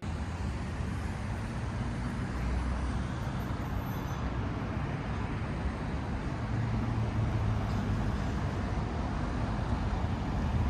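City street ambience: steady traffic noise with a low rumble.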